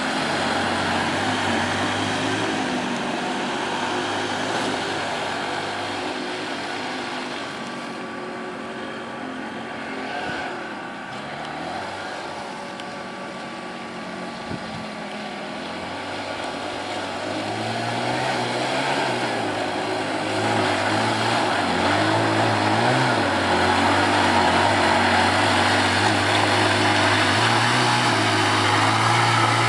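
Off-road vehicle engine running, fainter through the middle, then louder from about halfway on, its pitch rising and falling repeatedly as it revs.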